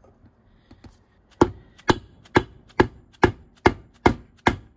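Hammer striking a 1 5/8 inch socket set against the old seal, driving the seal out of the transmission's rear bell housing. Eight sharp, evenly spaced knocks, about two a second, starting about a second and a half in.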